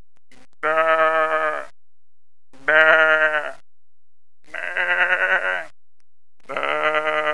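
A person imitating a sheep's bleat: four drawn-out, wavering "baa" calls of about a second each, with short pauses between them.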